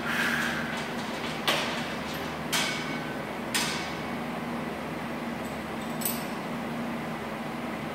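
Metal clanking from a gym cable machine: three sharp clanks with a short ringing about a second apart, then a lighter metallic click about six seconds in as the selector pin on the weight stack is moved.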